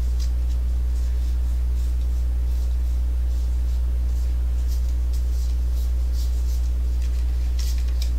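A steady low hum, with faint scattered rustles and light clicks of baseball trading cards and card packs being handled.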